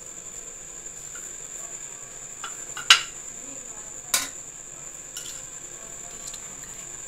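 Serving spoon knocking against the serving dish and plate while rice is dished out: two sharp clicks about a second apart, the second a little over four seconds in, with quieter scraping between. A steady faint high-pitched whine underneath.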